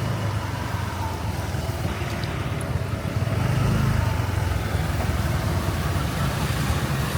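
Motorbike engine running steadily while riding, with road noise; it swells slightly around the middle.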